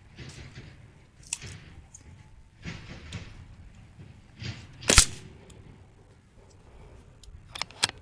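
PCP air rifle firing a single shot about five seconds in, a sharp crack. A lighter click comes about a second in, and a few more light clicks near the end.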